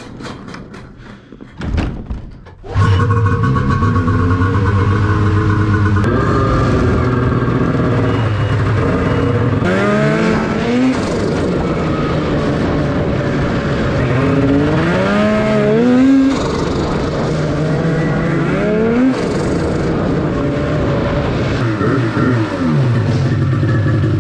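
A few clicks and clunks from a cargo trailer door, then a turbocharged 800 two-stroke twin snowmobile engine (2019 Arctic Cat M 8000) runs under way. It revs up in rising sweeps several times and drops back near the end.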